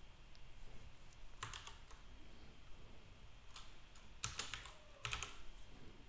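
Faint computer keyboard keystrokes in a few short groups: a key shortcut pressed and a short word typed.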